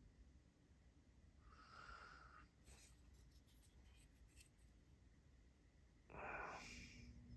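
Near silence, with a couple of faint breaths, one about two seconds in and a slightly louder one near the end, and a few faint small clicks in the middle.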